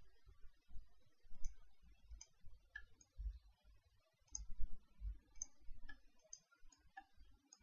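Computer mouse buttons clicking, faint and at irregular intervals, a dozen or so clicks, mixed with dull low thumps.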